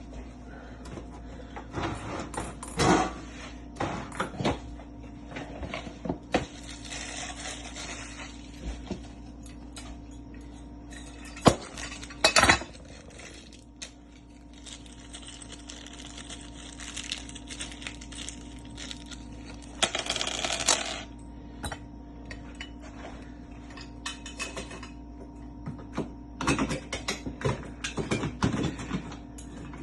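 Metal lock parts and hand tools clinking and clicking as a mortise lock is worked on, with scattered light taps, two sharp knocks about halfway through and a short rattle after that.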